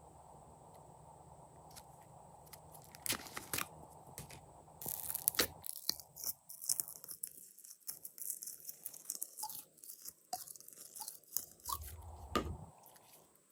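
Slime being squeezed and stretched by hand, giving sharp sticky clicks and pops. They are scattered at first and come thick and fast from about five seconds in.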